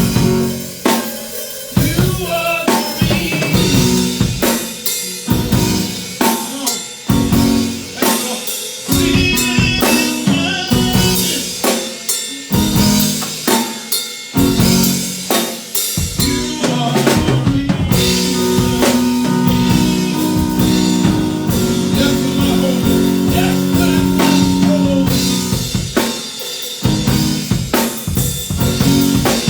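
Live band playing an instrumental passage: a drum kit keeps a steady beat with kick, snare and rimshots over bass and keyboard. Midway, held chords sustain for several seconds under the drums, which ease off briefly near the end.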